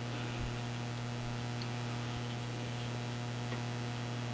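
Steady electrical mains hum with a few faint light ticks.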